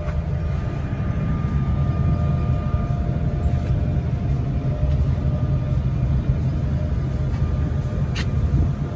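Vehicle ferry's engine running steadily: a deep, even rumble with a faint steady hum above it.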